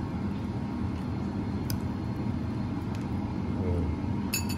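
Steady low hum of kitchen ventilation, with a few light clinks of a metal fork against a ceramic bowl, one about two seconds in and a cluster near the end.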